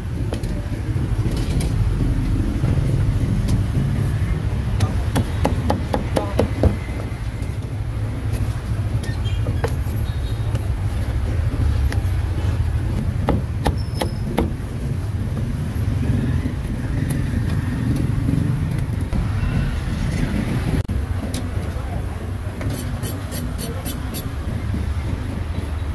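Several sharp knocks of a cleaver chopping roast duck on a wooden chopping block in the first several seconds, over a steady low rumble of street and traffic noise. Near the end comes a quick run of light clicks.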